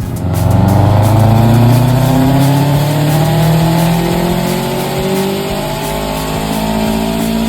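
Blobeye Subaru Impreza wagon's engine pulling hard under load, its pitch climbing steadily over several seconds.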